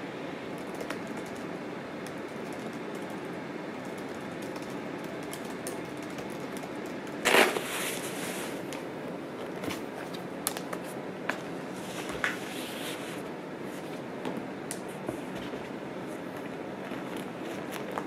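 Handling noises of a laptop being packed into a felt sleeve: scattered light clicks and knocks, with one louder burst of rustling about seven seconds in, over a steady room hum.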